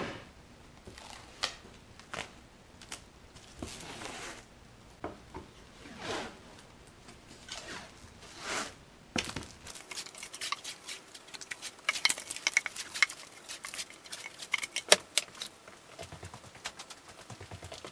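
Plastic stretch wrap being pulled off a hand roll and wound around a sheet of scrap board: rustling and crinkling of the film, with a few knocks as the board is handled. The crackling gets denser about halfway through.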